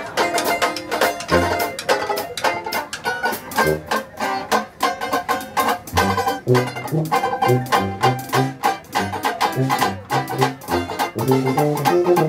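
Live Dixieland jazz band playing, with a banjo strumming steady rhythm chords up front over drums and a walking bass line.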